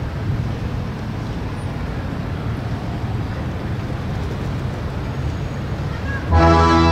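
Steady outdoor background rumble, like distant street traffic, with no voices. Near the end a brass band comes in loudly on a held chord.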